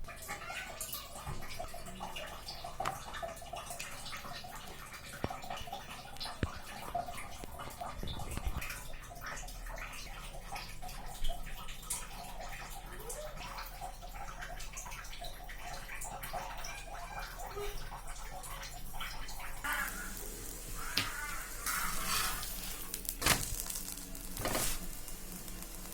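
Water running and splashing, with scattered small clicks and knocks; the water grows louder about twenty seconds in.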